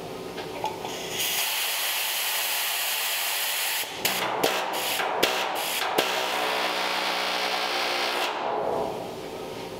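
Shop tool noise while the door hinge is being worked on: a steady hiss starts about a second in and fades out near the end, with about six sharp metallic clicks and taps in the middle.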